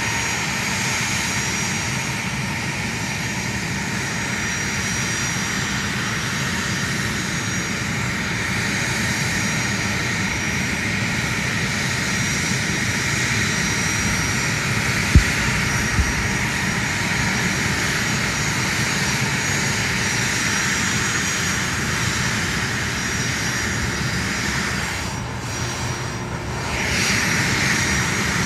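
A-10C Thunderbolt II's twin General Electric TF34 turbofans running steadily, with a faint high tone over the jet rush and a brief dip with a wavering sweep in tone near the end. Two short sharp clicks come about halfway through.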